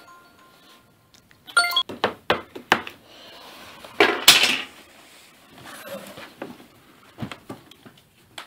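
Metal spoon, glass jar and ceramic mug clinking and knocking on a kitchen counter as instant coffee is spooned out. There is a louder scraping rustle about four seconds in and a few small clicks after it.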